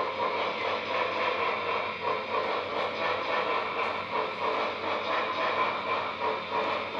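Model freight cars rolling along layout track: a steady rolling noise of the wheels on the rails, with light irregular clicks.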